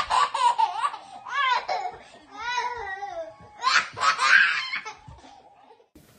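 A toddler laughing hard, high-pitched belly laughter in several bursts that die away about five seconds in.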